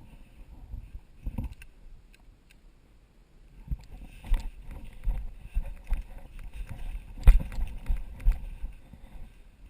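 Irregular footsteps and gear rustling close to the microphone, sparse at first and then busier from a little under four seconds in, with one sharp knock about seven seconds in.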